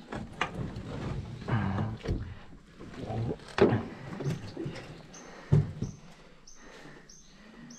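Knocks, bumps and scrapes of a large arapaima being handled and laid along a measuring board on an aluminium boat's checker-plate deck, with two sharp thumps about three and a half and five and a half seconds in. From a little past the middle, a short high call repeats about twice a second.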